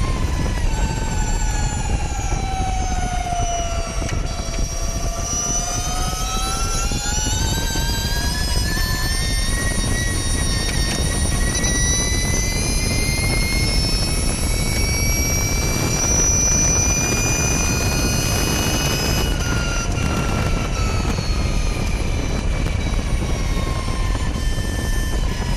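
Electric motor of a Ducati MotoE racing motorcycle at race speed, heard onboard as a high whine over a steady rush of wind. The whine drops over the first few seconds, climbs steadily for about fifteen seconds as the bike accelerates, then eases off near the end.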